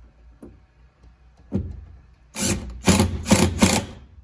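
Cordless drill run in short trigger bursts against the cab's interior panel, putting a self-tapping screw into the sheet metal: one brief burst about a second and a half in, then a quick string of loud bursts until near the end.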